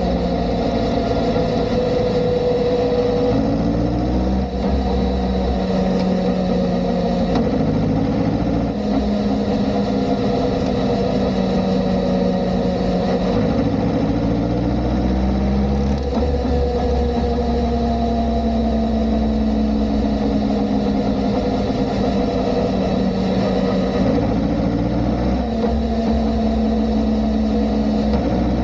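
Kawasaki ZR-7S's air-cooled inline-four engine running under way. Its pitch rises three times, about a quarter, halfway and near the end, and in between it holds a steady pitch.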